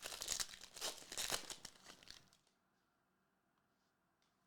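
Trading card packaging crinkling and tearing for about two and a half seconds, then a few faint ticks.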